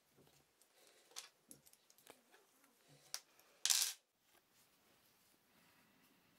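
Faint metallic clicks and clinks of a small steel fixture being handled: a screw turned in it and the piece shifted in the hands. There are a few sharp clicks, and one louder, brief metal clatter about three and a half seconds in.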